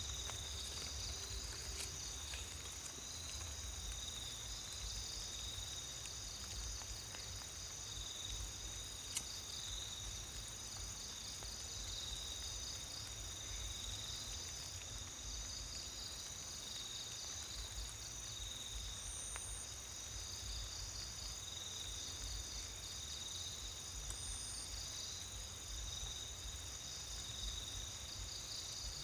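Chorus of insects: several steady high trills layered together, one of them pulsing, and a short higher chirp repeating about every five seconds from about two-thirds of the way in. A faint low rumble lies underneath.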